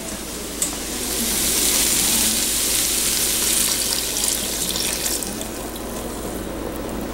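Beef stock and red wine poured from a glass measuring cup into an enamelled Dutch oven of cooked onions, carrots and celery: a steady rushing, splashing pour that starts with a small clink about half a second in and thins out near the end.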